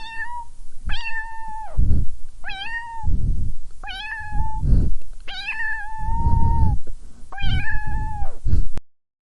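A domestic cat meowing six times, each meow half a second to a second long at a fairly steady pitch, with bursts of low rumbling noise between several of them. The sound cuts off suddenly near the end.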